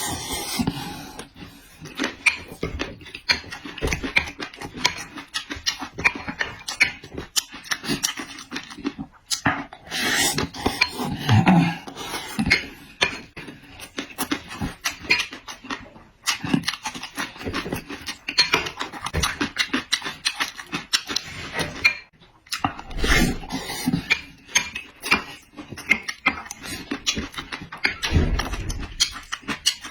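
Close-up chewing and crunching of food: a dense run of irregular wet smacks and clicks.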